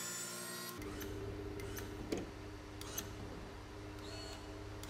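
Electric motor of a motorized TV lift in a pickup bed running as it raises a flat-screen TV. Its whine shifts about a second in to a steadier, lower hum, with a few light clicks after.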